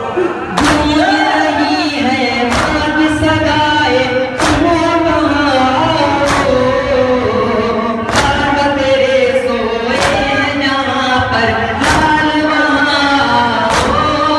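A noha, the Shia lament, sung by male voices in a chanting melody. The group's matam chest-beat strikes it in unison about every two seconds, eight strikes in all.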